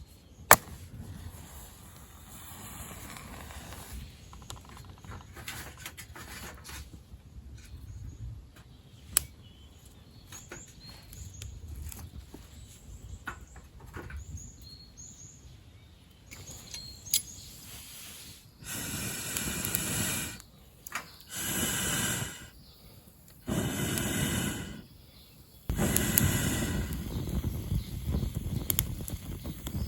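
Wood campfire being lit: small crackles and snaps, then from about two thirds of the way in, several rushing, hissing bursts of a second or two each that cut off abruptly, the last one running on. Faint bird chirps sound in the background.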